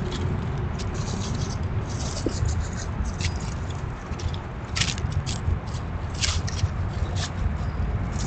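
Black squirrels scrabbling and foraging through dry leaf litter: short, scattered crackling rustles and scratches, a few louder ones in the second half, over a steady low rumble.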